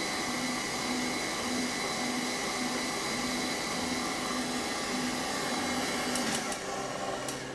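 Commercial planetary stand mixer running steadily, its motor and beater giving a constant whirring noise with a low hum that pulses about once a second. Near the end come a few sharp clicks as the mixer is handled.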